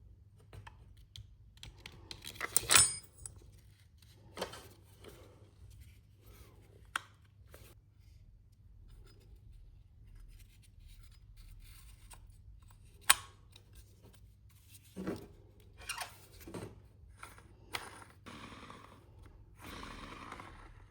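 Handling noises: scattered clicks, taps and scrapes, with a louder clatter about three seconds in, a sharp click a little past the middle, and a rubbing sound near the end.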